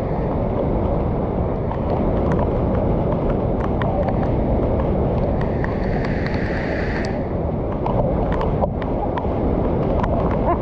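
Swollen, muddy river water rushing over a low weir and churning in the pool below: a loud, steady roar of water with crackling splashes.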